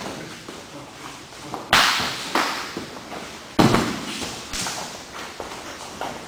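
Sharp slaps and thuds of bare feet and bodies striking a padded training mat during sparring, four hits with a short echo each, the loudest about 2 and 3.5 seconds in.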